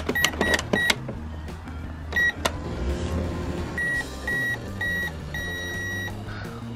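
Toy microwave beeping electronically as its keypad is pressed: four quick beeps, one more about two seconds in, then three short beeps and a longer one near the end.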